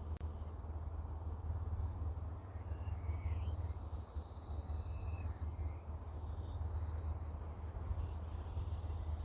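Outdoor ambience: small birds chirping and calling, strongest in the middle stretch, over a steady low rumble.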